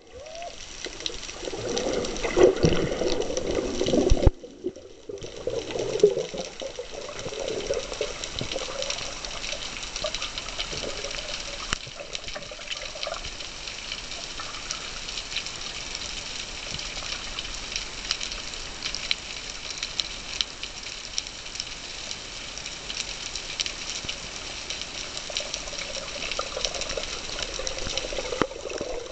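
Sea water heard underwater: irregular sloshing rushes for the first few seconds, cutting out briefly about four seconds in, then a steady hiss with fine, dense crackling.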